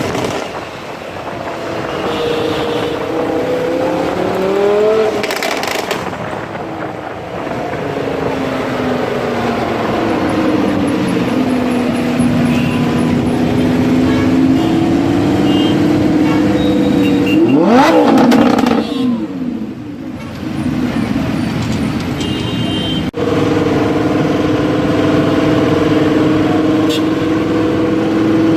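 Lamborghini Huracán's V10 running through an aftermarket Fi valved exhaust, its pitch rising and falling as the car drives and changes speed. About eighteen seconds in, a quick sharp rev climbs steeply and is the loudest moment, then falls away. Near the end the engine settles into a steady drone.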